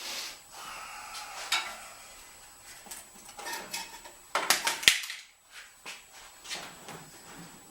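Metal tools and engine parts clinking and clattering as they are handled, with a quick run of sharper knocks about four and a half seconds in.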